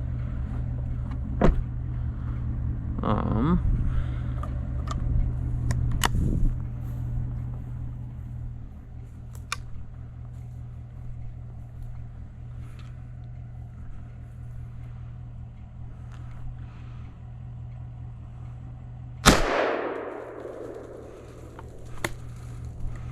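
A vehicle engine idling with a steady low hum, louder for the first several seconds, with a few sharp clicks and knocks. About 19 seconds in, a single 20-gauge single-shot break-action shotgun fires once, the blast echoing away over a second or two.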